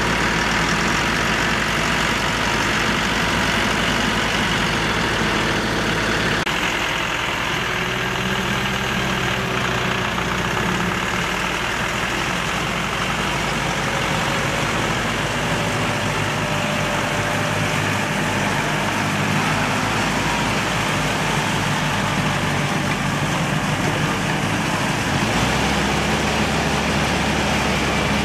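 Farm tractor's diesel engine running steadily under load while a rear rotary tiller churns wet paddy mud. The engine note changes abruptly about six seconds in and again near the end.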